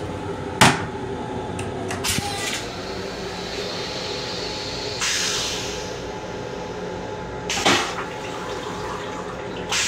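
Stainless steel toilet in an M7 railcar restroom flushing. A sharp clack comes about half a second in, rinse water hisses over the bowl from about five seconds, and a loud sudden rush follows near the end, over the steady hum of the railcar.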